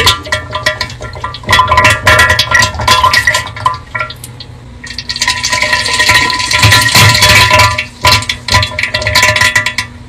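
Comedic diarrhea sound effect: loud, wet sputtering splats and crackles in irregular runs, with a quieter stretch about four to five seconds in.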